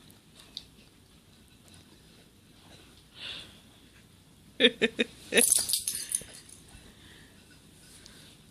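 A person reacting to the burn of a Moruga Scorpion chili pepper: a soft breath about three seconds in, then four short, loud grunts from the throat just past halfway, followed by a loud hissing breath.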